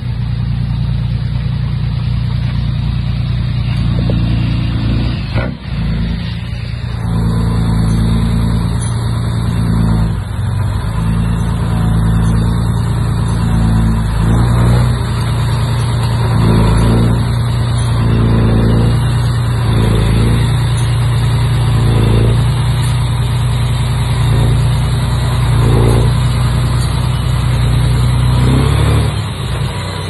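Diesel engine of a Komatsu D31P bulldozer running steadily. There is a brief dip about five seconds in, then the sound grows fuller with repeated surges roughly every second or two.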